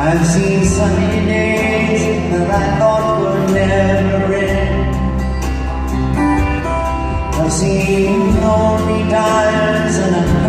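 Live performance of a slow song on acoustic guitar and grand piano with a man singing, recorded from the audience seats of a concert hall.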